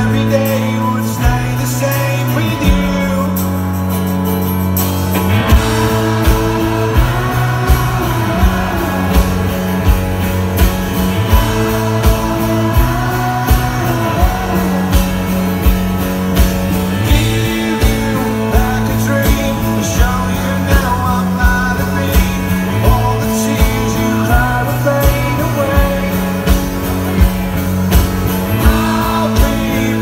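Live rock band playing a song: acoustic guitar strumming under a male lead vocal, with drums coming in about five seconds in and keeping a steady beat.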